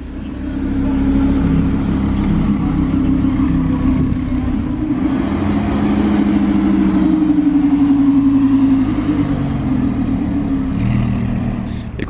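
Lamborghini Huracán's V10 engine running at low revs as the car rolls slowly past, a steady deep exhaust note that rises a little midway and eases off near the end.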